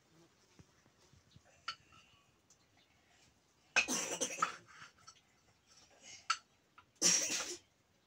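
Two short coughs about three seconds apart, with faint clinks of a metal spoon against a cooking pot between them.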